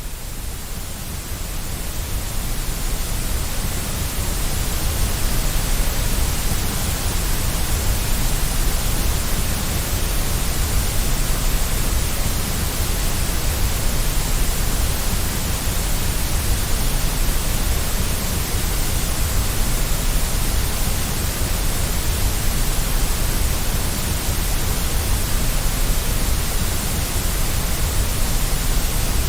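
Steady white noise of the kind played to settle a baby to sleep: an even, unbroken hiss, heaviest in the deep low end. It fades in over the first few seconds.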